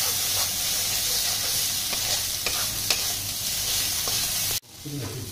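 Onion-garlic masala paste sizzling in hot mustard oil in a kadai while a metal spatula stirs and scrapes it, with scattered clicks of the spatula against the pan. This is the masala-frying stage of a curry. The sizzle cuts off abruptly about four and a half seconds in.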